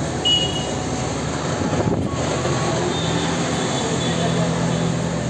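Steady rushing indoor noise of a shopping mall store, with indistinct voices in the background.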